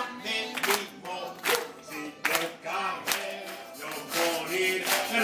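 A song sung with a crowd of children clapping along in time, the claps coming steadily a little more often than once a second.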